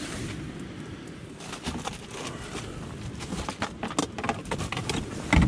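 Handling noise of fishing tackle being searched for a disgorger: scattered small clicks and rattles, with a loud low thump near the end.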